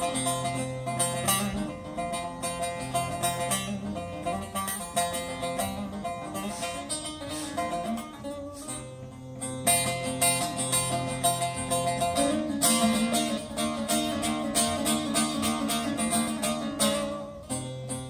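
Bağlama (Turkish long-necked saz) playing an instrumental introduction to a Turkish folk song: a melody of quick picked notes over a steady low note.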